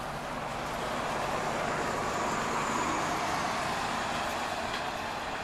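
City bus passing on the road alongside: engine and tyre noise building to a peak about three seconds in, then easing off as it draws away.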